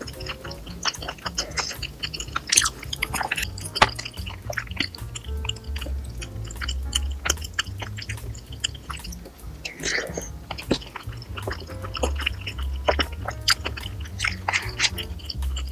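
Close-miked eating sounds: chewing and biting food, with many small wet clicks and crunches, over soft background music.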